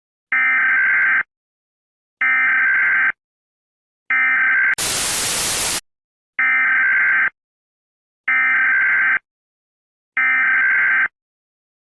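Emergency Alert System SAME header data bursts: six buzzy bursts of digital tones, each about a second long and about two seconds apart. The third burst breaks off into about a second of loud static hiss.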